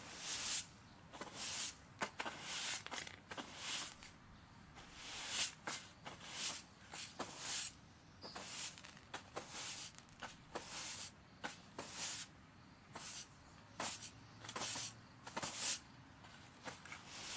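Broom bristles sweeping in short, brisk strokes, each a soft swish of hiss, coming unevenly at about one or two a second.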